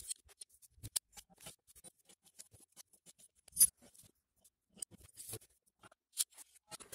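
Irregular clicks and light knocks of metal parts being handled and set down on a workbench: an angle grinder's gear head and a long drive rod. The sharpest knocks come right at the start and about three and a half seconds in.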